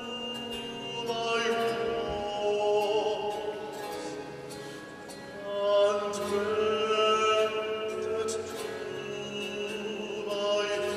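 Baritone singing classical chamber music in long held notes with vibrato, accompanied by harpsichord whose plucked notes sound as short sharp attacks. The voice swells louder about six seconds in.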